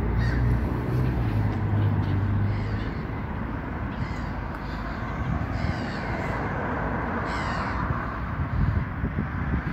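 Crows cawing, several short harsh calls, over a steady outdoor background noise, with a low hum in the first few seconds.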